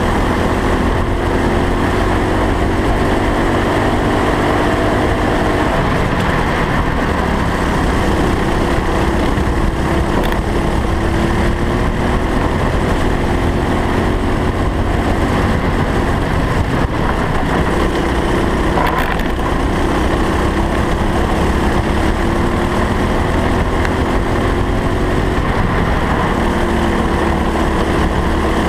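Go-kart engine running hard on track, its pitch climbing slowly as it pulls and dropping back several times as it slows for corners, over steady wind and road rumble on the low-mounted onboard camera.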